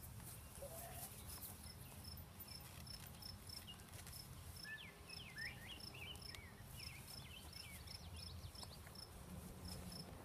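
Quiet outdoor field ambience: a steady run of short, high, evenly spaced chirps, about three a second, with a bird twittering in quick rising and falling notes in the middle, over a low steady rumble.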